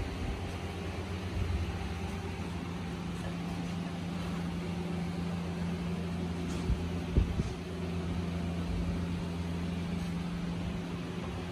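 A steady low mechanical hum holding one pitch over a faint hiss, with a couple of brief soft knocks about seven seconds in.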